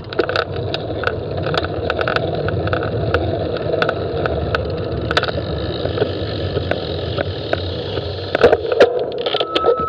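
Heavy dump truck's diesel engine running close ahead, mixed with wind and road rumble on a bicycle-mounted camera, with sharp rattling clicks throughout and a few louder knocks near the end. In the last half-second a steady high beep starts: the truck's reverse alarm as it begins backing up.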